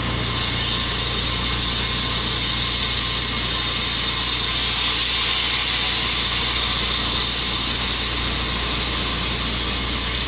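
Taiwan Railway EMU500 electric multiple unit pulling out of the station: a steady hum of its traction equipment with running noise, a higher whine that shifts about seven seconds in.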